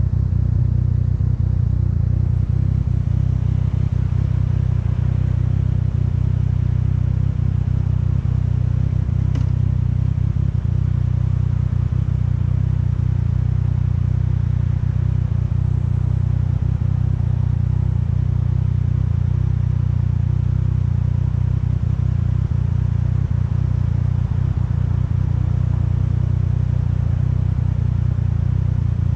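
2014 Yamaha FZ-09's 847 cc inline-three engine running at a steady pitch, heard from the bike itself, with no revving up or down.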